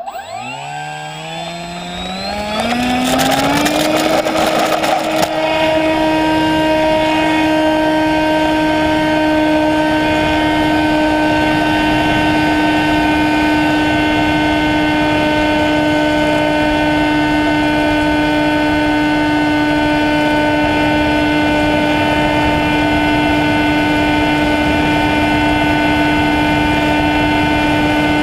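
Electric motor and propeller of an Albatross fixed-wing drone spinning up for takeoff, its whine rising in pitch over the first four seconds, then holding a steady high drone as it climbs. A brief rough rattle joins it about three to five seconds in.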